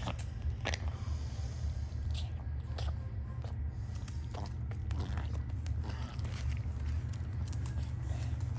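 Small dog licking and chewing at the floor where it has spat up: a run of short, irregular clicks and smacks over a steady low hum.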